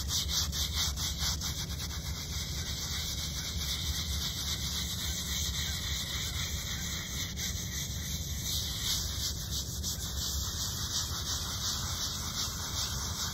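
Small hand brush scrubbing the face of a stone headstone in quick, repeated back-and-forth strokes.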